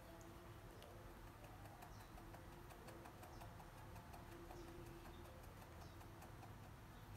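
Near silence: faint room hiss with faint scattered ticks and a few faint, short high chirps.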